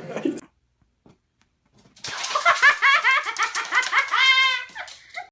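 A rapid series of short, high chirping calls from an animal, several a second, lasting about three seconds after a brief silence.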